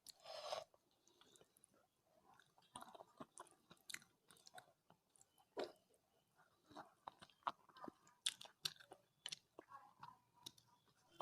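Quiet, close-miked chewing of a mouthful of rice and curry: wet mouth clicks and small smacks, scattered irregularly throughout.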